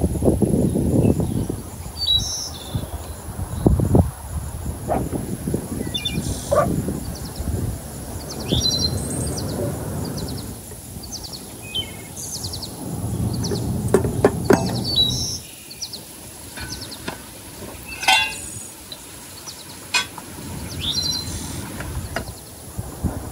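Birds chirping on and off, short high calls every few seconds, over patches of low rumbling background noise, with a few sharp knocks and clicks.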